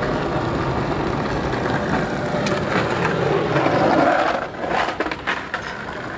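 Skateboard wheels rolling over the paved street, a steady gritty rumble that grows to its loudest as the board passes close by about four seconds in, then drops away suddenly. A few sharp clicks follow.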